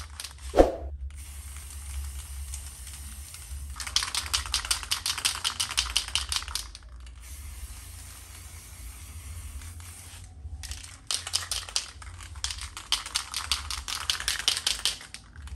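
Aerosol spray can hissing in long sprays with short pauses, louder and pulsing rapidly from about four to seven seconds in and again from about eleven seconds on. A sharp metallic clink just under a second in.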